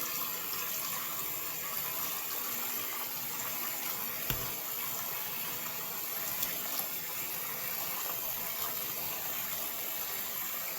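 Sink faucet running steadily into the basin, with one brief knock about four seconds in.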